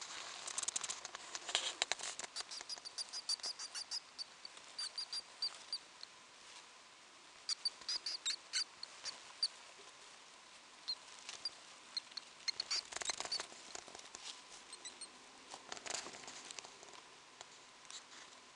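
Pet mouse pups squeaking in short, high chirps that come in clusters, with brief rustles of wood-shaving and tissue bedding as the mother moves over them in the nest.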